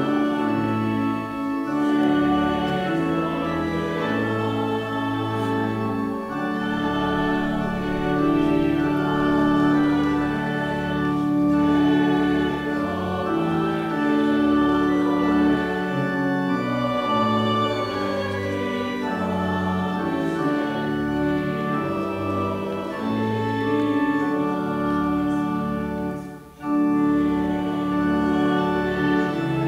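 Organ playing slow, held chords over a stepping bass line, with a brief break near the end.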